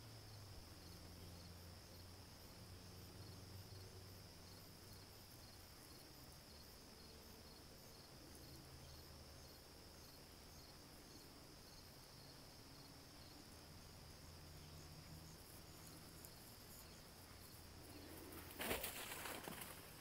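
Near silence: faint, steady high-pitched insect trill with a faint low hum under it. A brief rustling noise comes near the end.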